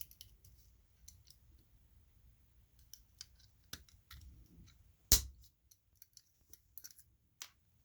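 Small cutters snipping the end of a Hot Wheels car's metal axle: one loud sharp snap about five seconds in, with scattered light clicks of the tool and parts being handled around it.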